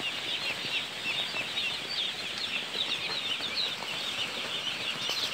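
Dense, continuous peeping of a large flock of day-old broiler chicks, countless short high chirps overlapping.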